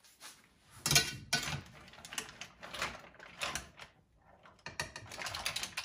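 Cooked mussels in their shells clattering against each other and a steel frying pan as they are stirred with a utensil: irregular rattles, clinks and scrapes in several short spells, with a brief pause about four seconds in.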